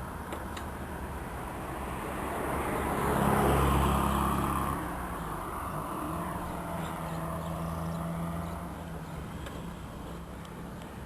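Road traffic: a car passing, growing loudest about three to four seconds in and then fading, over a steady low engine hum.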